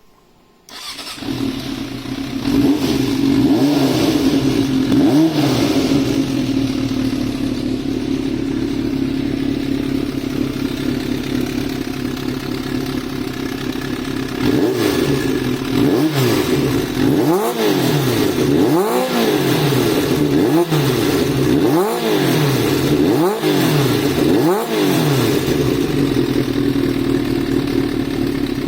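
Motorcycle engine breathing through a short MRS Yoshimura-type muffler with an inner silencer baffle fitted. It starts about a second in and idles with a few light revs. From about halfway it is blipped sharply about seven times, roughly every one and a half seconds, then settles back to idle.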